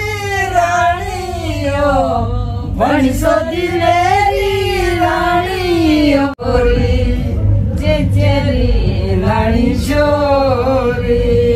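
A woman sings a Himachali Pahari folk song unaccompanied, in long held notes that waver and slide. The singing breaks off briefly about six seconds in, then carries on.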